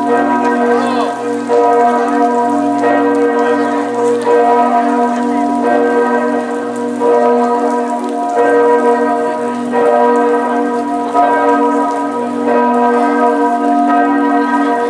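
The great bells of St Mark's Campanile ringing, a fresh stroke about every one and a half seconds, each tone still sounding under the next.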